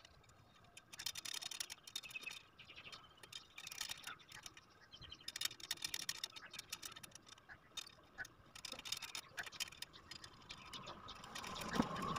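Faint, irregular metallic clicking and ticking of motorcycle wheel spokes and their nipples being turned by hand to snug them up on the rim, with a louder noise building near the end.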